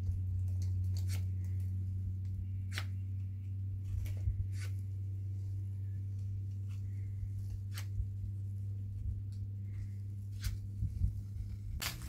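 Sparse light clicks and rustles as a bundle of thin wire and twigs is handled, over a steady low hum.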